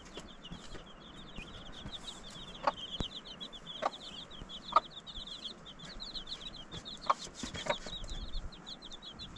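A brood of domestic chicks peeping continuously in rapid, high chirps, with a handful of short clucks from the mother hen.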